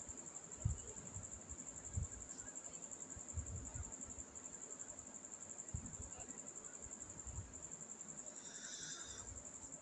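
A cricket trilling in a steady, high, rapidly pulsing chirp. A few soft low thumps come from a hand drawing with a pencil on a sketchbook, and there is a brief rustle near the end.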